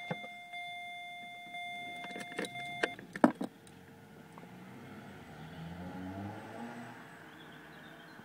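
A Vauxhall Corsa D being switched on with the key: a steady electronic warning tone for about three seconds, then a cluster of sharp key and ignition-switch clicks. After that comes a low, steady electrical hum with a faint rising whir as the car's electrics come on.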